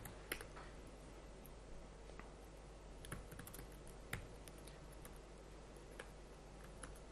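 Faint, sparse typing on a laptop keyboard: single key clicks and a short run of keystrokes about three seconds in, with gaps between, over a low steady hum.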